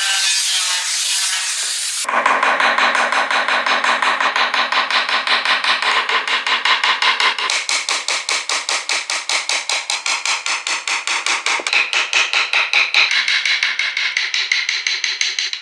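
A woodworking tool working wood: a short stretch of steady hissing, then from about two seconds in a fast, even tapping of about eight strikes a second, with a ringing tone under it.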